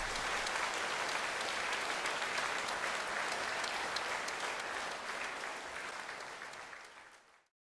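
Large audience applauding after a song, gradually fading away and cutting off to silence near the end.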